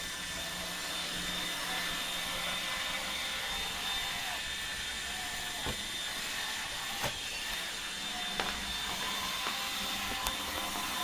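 iRobot Roomba 870 robot vacuum running steadily, an even whirring noise with a constant high whine, working back and forth over a patch it has detected as dirty. Several light clicks come through in the second half.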